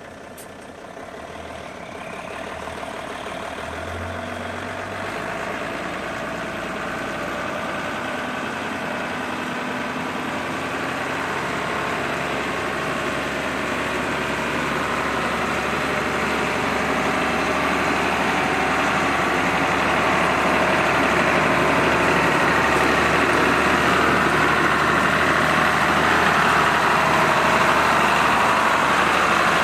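Engine of a cab-over camper truck driving toward the listener, getting steadily louder as it approaches and levelling off once close.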